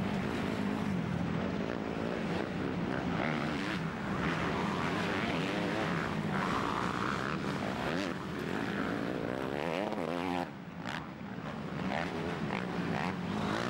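Motocross bike engines revving hard as riders race down the dirt track, the pitch climbing and falling with each throttle change and shift. The sound dips briefly about ten seconds in before the engines come back up.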